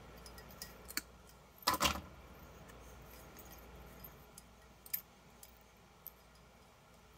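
Diagonal cutters snipping a thin wire wrapped around a projector lamp's glass burner: a sharp click about a second in, then a louder clatter of glass and metal just before two seconds. A few faint ticks follow as the glass and metal parts are handled.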